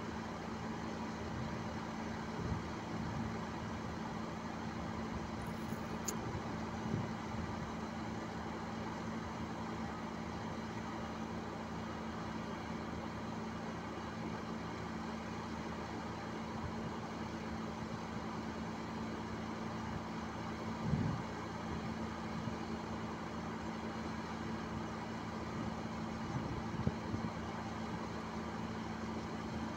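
Diesel engines of heavy earthmoving machines, a hydraulic excavator and bulldozers, running with a steady low drone. A few brief knocks stand out, the loudest about twenty-one seconds in.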